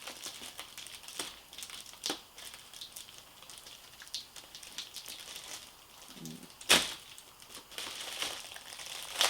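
Packaging crinkling and rustling as a package is worked open by hand, with a few sharp snaps or clicks, the loudest one about two-thirds of the way through.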